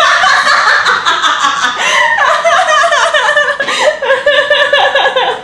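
Hearty laughter in rapid, repeated bursts.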